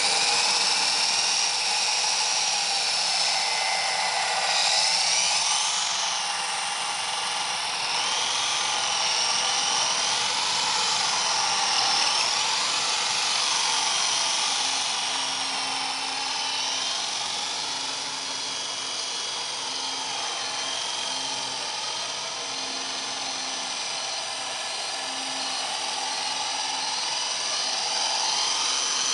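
Extreme 350X small electric RC helicopter in flight: its electric motor and coaxial rotors whine steadily, with the whine's pitch wavering up and down.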